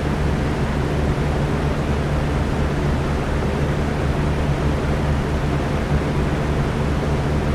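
Electric fan running steadily: an even rush of moving air over a constant low motor hum.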